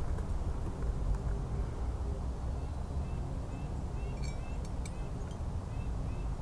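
Outdoor ambience between shots: a low steady rumble with faint, short bird chirps from about two and a half seconds in; no rifle shot.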